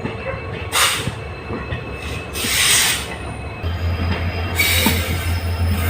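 Passenger train running out on the rails behind a WDP-4D diesel locomotive, with two short hissing bursts. About two-thirds of the way through, the low, steady hum of the locomotive's EMD diesel engine comes in strongly.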